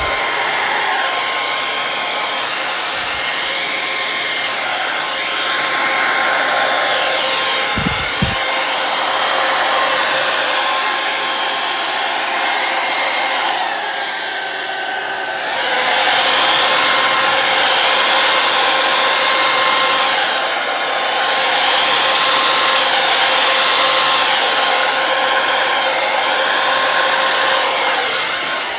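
Handheld hair dryer running on its low setting, blowing wet acrylic paint across a canvas: a steady rush of air with a motor whine, its loudness shifting as the dryer is moved and louder from about halfway.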